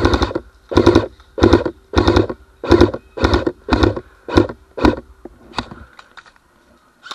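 Airsoft rifle firing on full auto in short, rapid bursts, about two a second, each a quick rattle of shots; the bursts weaken and stop about six seconds in.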